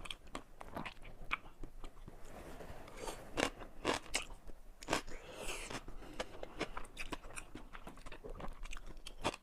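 A person biting and chewing crunchy food close to the microphone, with irregular crisp crunches and a few louder bites a few seconds in.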